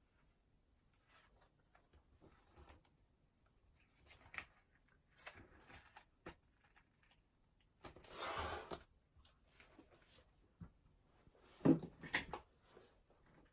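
Quiet handling sounds at a study desk: scattered soft rustles and light taps, a longer rustle a little past the middle, and a sharper knock near the end, the loudest sound.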